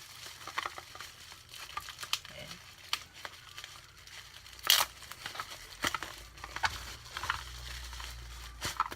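Plastic wrapping crinkling and tearing as a fidget cube is unwrapped by hand: irregular rustles and crackles, with one sharper rip about halfway through.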